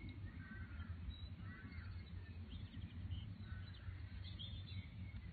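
Faint birdsong: scattered short chirps from birds in the trees, over a low steady rumble.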